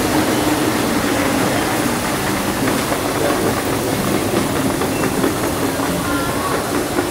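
Steady, loud mechanical rumble and hiss with a constant low hum running through it, the sound of vehicles or machinery going by.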